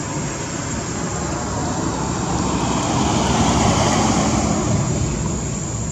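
A vehicle passing by: a rushing noise that grows louder to a peak a little past halfway, then fades away.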